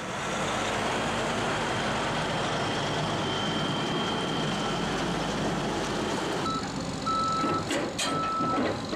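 Steady heavy engine noise, then from about six and a half seconds in a backup alarm beeping about once a second, each beep about half a second long, as the Caterpillar D6R dozer reverses down the trailer ramps. A few sharp clicks come near the end.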